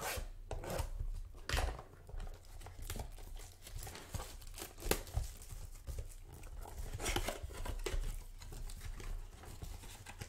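Cardboard trading-card retail box handled close to the microphone: fingers rubbing and scraping over it, with a few sharp taps.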